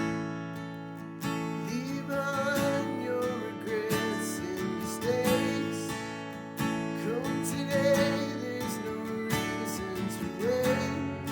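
Acoustic guitar strumming worship-song chords, with a wavering melody line above them.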